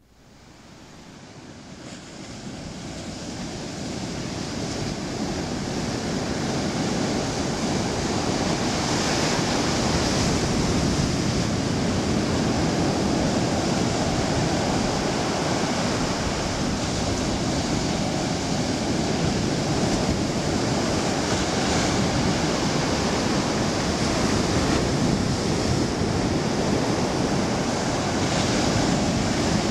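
Ocean surf breaking and washing up a sandy beach: a steady rushing wash that fades in over the first few seconds and then swells and eases gently.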